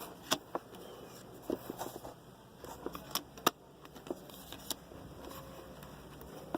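Trading cards and their packaging being handled and flipped through, giving irregular light clicks, snaps and crinkles.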